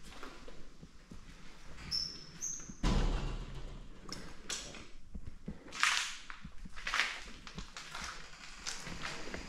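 A string of irregular knocks and scrapes with a heavy thud about three seconds in. Two short high squeaks come just before the thud.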